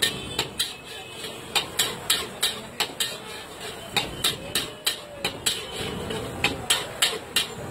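Metal spatula clanging against a steel wok in quick, irregular strikes, about two or three a second, as rice is stir-fried and tossed over a gas flame.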